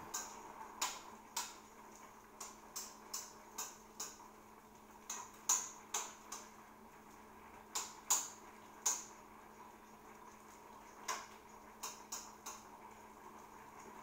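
Food in a wok on an electric stove being stirred: irregular sharp clicks and pops, one or two a second with a lull in the middle, over a faint steady hum.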